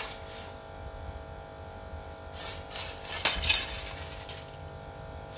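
Handling noise from a carbon fishing rod: a click at the start, then rubbing and light clinks from a little after two seconds in to about three and a half seconds, as a hand slides along and grips the rod.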